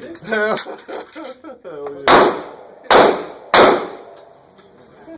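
Handgun firing three shots in quick succession, each about three-quarters of a second after the last, every one with an echoing tail off the range walls. A brief voice comes just before the shots, and a fourth shot goes off right at the end.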